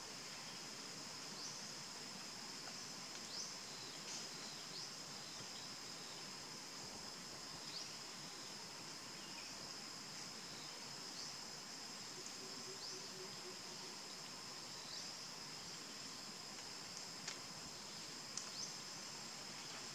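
Forest ambience: a steady high-pitched insect drone, with short rising chirps every second or two and a few sharp clicks near the end.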